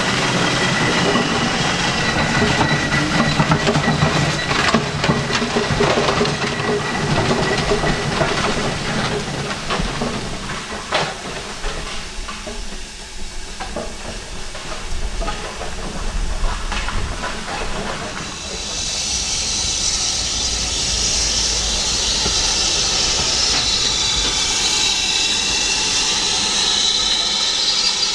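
Steam train passing with repeated knocks and clatter over a low rumble, easing off about ten seconds in. From about two-thirds of the way through, steam hisses steadily.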